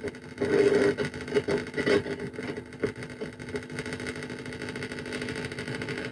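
A germanium-diode crystal radio played through an amplified speaker: a faint, muffled AM broadcast coming through hiss and hum, the station audio fading in and out during the first two seconds as the very sensitive tuning is adjusted, then mostly steady noise.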